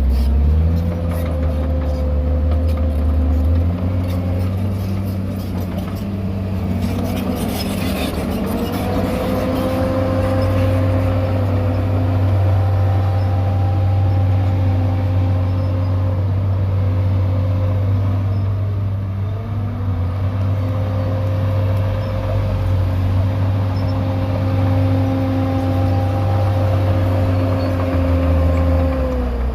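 Heavy diesel engine of earthmoving machinery running hard, its pitch dipping and climbing back up a few times as the load changes, and falling off near the end.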